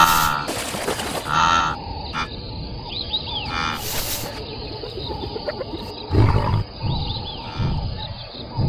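Cartoon lionesses making short vocal calls and a low growl about six seconds in, with a quick whoosh at the start as the wildebeest dashes away. Under them runs a steady savanna ambience of insects, with a few short chirps.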